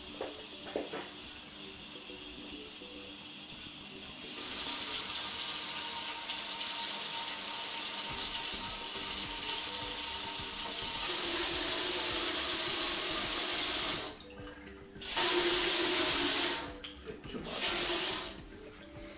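Kitchen mixer tap running into a stainless steel sink through a freshly fitted low-flow aerator, the flow turned up in two steps, about four seconds in and again about eleven seconds in. Near the end the tap is shut off and run again in two short bursts.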